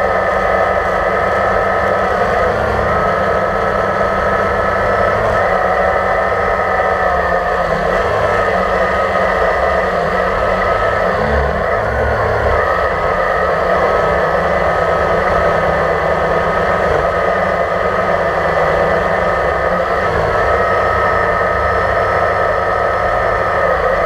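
Quadcopter drone's motors and propellers whirring steadily, heard from the camera on board, with a brief wobble in pitch about halfway through as it manoeuvres.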